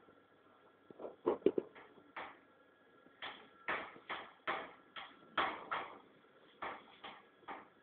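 Irregular knocks and thumps, about a dozen spread unevenly, with a faint steady tone behind them.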